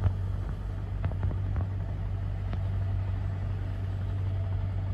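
A boat engine running steadily with a low, even drone, with a few faint clicks in the first few seconds.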